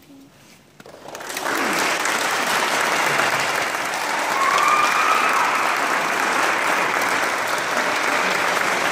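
Audience applauding, starting suddenly about a second in and holding steady, with a short rising tone over it near the middle.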